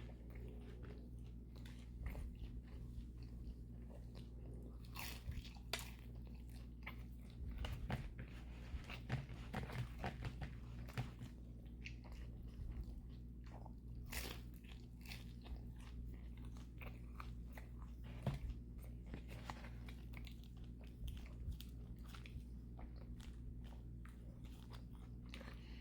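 A person biting and chewing a crunchy fried spring roll, with many short crackling crunches scattered throughout. A steady low hum runs underneath.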